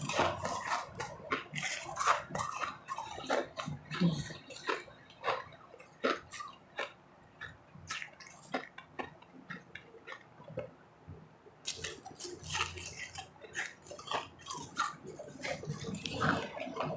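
Close-miked chewing of refrozen powdery ice. It makes a run of sharp, irregular crunches and crackles that thin out midway and pick up again about three-quarters of the way through.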